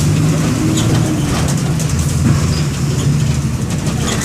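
MWM 6.12 TCE six-cylinder inline turbodiesel of a Volksbus 17-230 EOD bus running steadily, heard from aboard the bus.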